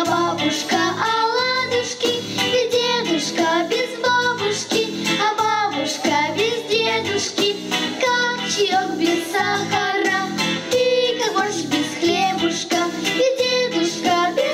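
Two young girls singing a song together into microphones over an accompaniment with a steady beat.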